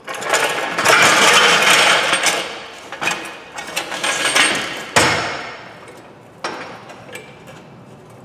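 Steel trolley floor jack being set and worked under the front of a van on a concrete floor: a loud rush of noise, then a sharp metal clank about five seconds in and a lighter knock a little later.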